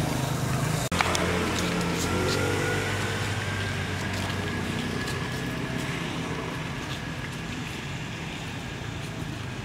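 Steady engine-like hum, as of a motor vehicle running, with a sharp click and a brief dropout about a second in, followed by a faint tone that slowly falls and fades.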